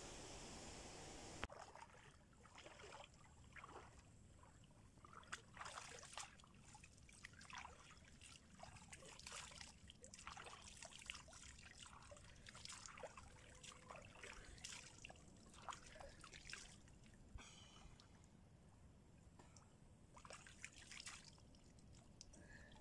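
Faint trickling and splashing of river water in short, irregular bursts as a man standing in the shallows scoops it up in his hands and washes with it.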